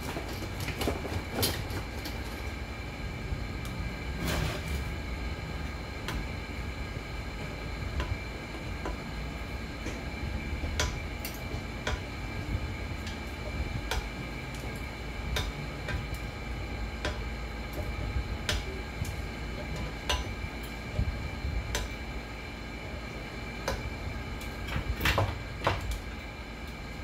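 Scattered light clicks and knocks of an inverter welder's metal casing and hand tools being handled, with a few louder knocks near the end. Under them runs a steady hum with a low rumble and a constant high whine.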